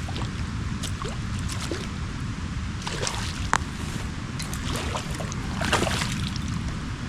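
Steady rush of creek water with wind buffeting the microphone, broken by a few short sharp clicks and splashy ticks.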